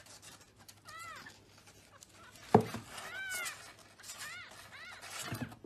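A newborn kitten mewing: several short, high-pitched mews that rise and fall, one about a second in and a run of them later on. A single thump comes about two and a half seconds in.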